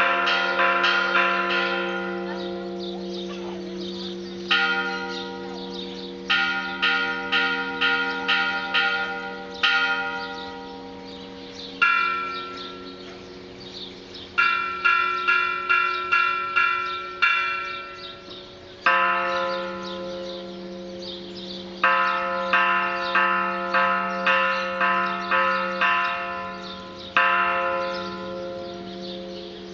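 Church bells ringing the call to mass. Runs of quick strokes, about two a second, alternate with single strokes on another bell, over the long hum of a deeper bell.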